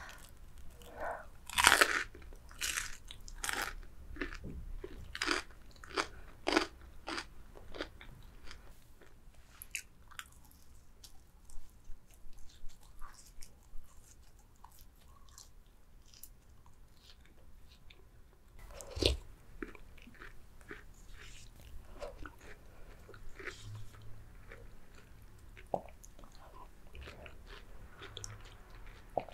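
Close-miked crunching and chewing of crispy fried chicken: a quick run of loud, crisp bites in the first several seconds, then sparser, softer chewing, with one sharp crunch about two-thirds of the way through.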